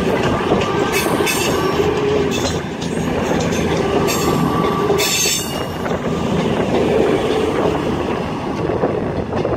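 CrossCountry Class 221 Voyager diesel-electric multiple unit passing through, its underfloor diesel engines running over a steady roar of wheels on rail. A few sharp wheel clicks come about 1, 1.5, 4 and 5 seconds in.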